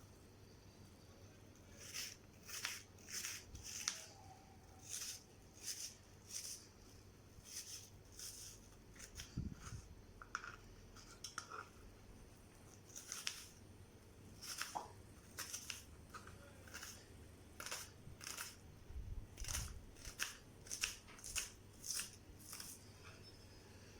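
Scissors snipping: runs of short, crisp cuts at an uneven pace, with brief pauses between the runs.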